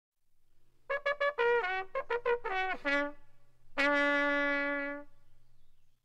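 Short brass intro fanfare: a quick run of short notes, a few sliding down in pitch, then one long held note that fades away.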